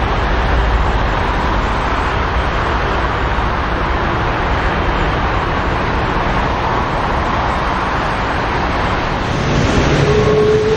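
Airbus A330-300's turbofan jet engines at taxi power, a steady rushing noise. Near the end it grows louder and a single engine whine comes in, slowly rising in pitch.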